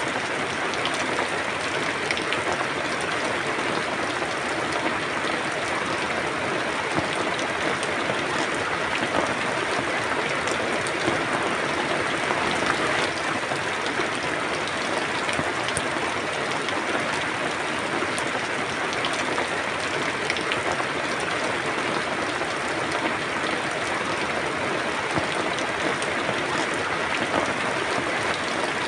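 Steady rain falling, a dense even hiss with many small drops ticking through it.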